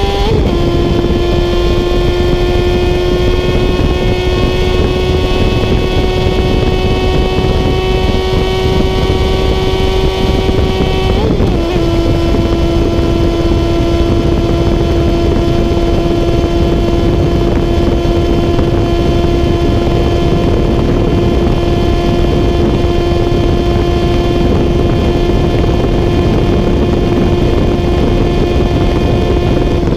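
Honda CBR 600 F3's inline-four engine running steadily at high revs under way, with rushing wind noise. The engine note drops a little right at the start and again about eleven seconds in.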